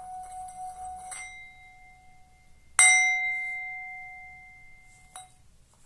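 Small 8 cm bronze Tibetan singing bowl ringing. Its earlier tone fades, it is tapped lightly about a second in, then struck firmly with the mallet near the middle, giving a bright ring of several tones that slowly dies away. A small click comes near the end.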